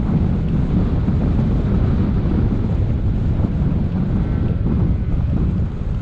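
Airflow rushing over the microphone of a camera mounted on a hang glider's wing in flight: steady, unbroken low wind noise.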